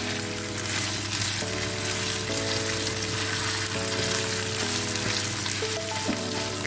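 Pork mince sizzling steadily as it fries in a nonstick pan and is stirred with a wooden spatula, with background music underneath.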